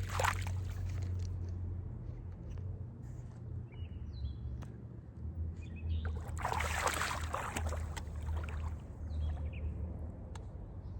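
Splashy surges of water over a steady low rumble, one right at the start and a longer one lasting about two seconds a little past the middle, with a few short bird chirps in between.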